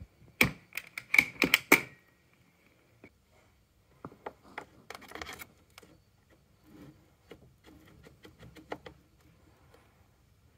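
Sharp metal clacks as the aluminium Pro Display XDR is set onto the Pro Stand's magnetic mount: a quick run of about five loud knocks in the first two seconds. After that come softer clicks and handling noises as a cable is worked at the back of the display.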